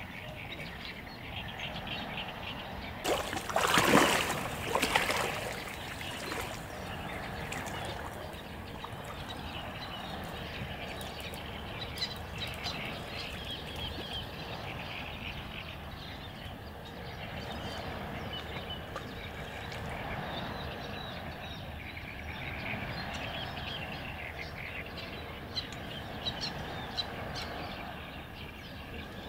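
Outdoor waterside ambience: many small chirping calls of birds or insects over a steady hiss, with a louder rough burst twice about four and five seconds in.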